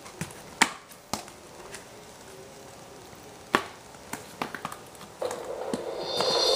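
Sharp, irregular clicks from a DBPOWER portable DVD player's disc drive as it loads and reads the disc: a few scattered, then a quick cluster. About five seconds in, the disc's opening music starts through the player's speaker.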